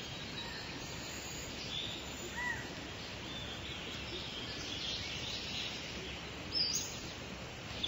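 Outdoor ambience: a steady background hiss with a few short bird chirps, a pair about two and a half seconds in and more near the end.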